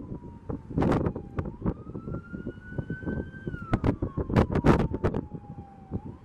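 Emergency vehicle siren wailing, its pitch slowly rising and then falling, with many sharp pops and crackles throughout.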